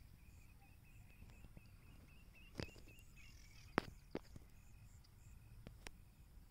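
Faint, quick series of short high-pitched chirps, with a few sharp clicks scattered through the middle.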